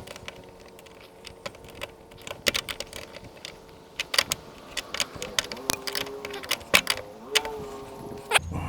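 Irregular metallic clicks and clinks of hand tools working on the hood latch bolts as they are tightened. A faint steady tone sounds underneath.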